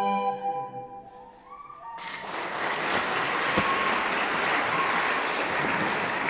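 An early-music consort's final held chord fades away in the first second or so, then audience applause starts about two seconds in and keeps going.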